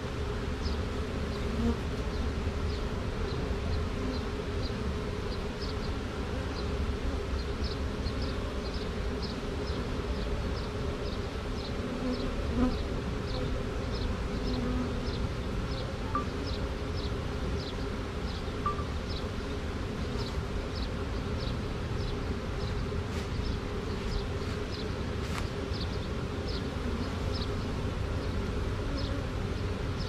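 A swarm of honey bees buzzing steadily close to the microphone as the bees crawl across a board into a hive box.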